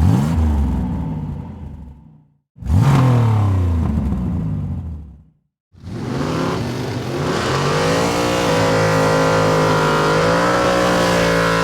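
Hellcat-swapped Plymouth Road Runner's supercharged 6.2-litre Hemi V8 revving in three clips cut together: two blips that fall away, then a rev that climbs and is held steady for several seconds before cutting off.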